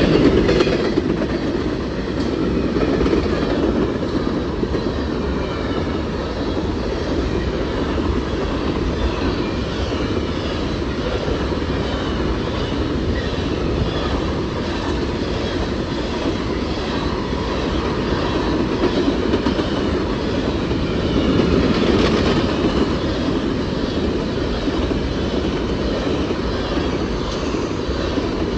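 Empty coal train cars rolling past at track speed: a steady rumble and rattle of wheels on rail, swelling slightly about three-quarters of the way through.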